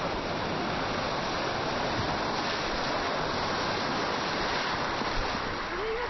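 A steady, even rushing noise with no clear events in it, of the water-or-wind kind.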